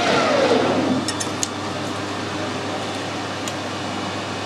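Metal lathe spindle winding down after turning stainless steel: a falling whine over the first second, then a steady low machine hum with a few light clicks.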